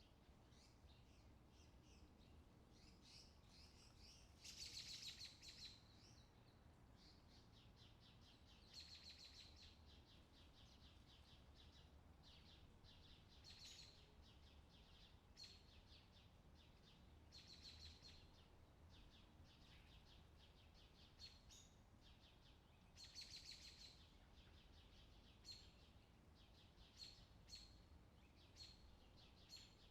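Small birds chirping faintly: scattered short high chirps with a few brief flurries of rapid chirping every several seconds.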